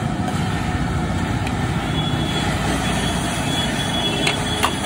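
Steady roar of a high-pressure gas burner firing under a large steel wok, with a couple of sharp clanks of the metal ladle against the wok.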